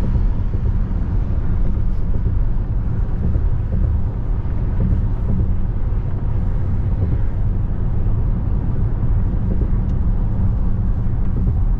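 Steady road and engine noise inside a car's cabin while cruising on a freeway: an even low rumble with no distinct events.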